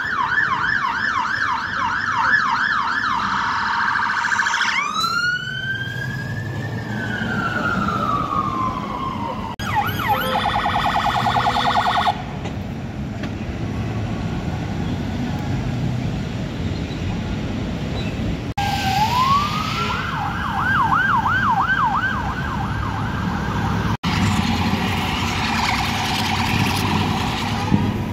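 UK emergency vehicle sirens in quick succession over city traffic. First comes a fast yelp warbling about three times a second, then a single long wail that rises and slowly falls, then a much faster warble. After a stretch of plain traffic noise the yelp returns about two-thirds of the way through, and a fainter siren follows near the end.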